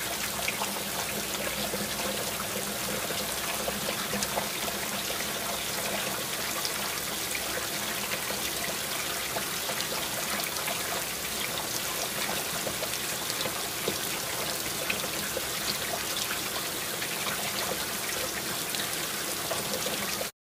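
Water trickling and splashing steadily in a stainless steel sink and bowl as pansit-pansitan sprigs are rinsed by hand, with small scattered drips and taps. The sound cuts off suddenly just before the end.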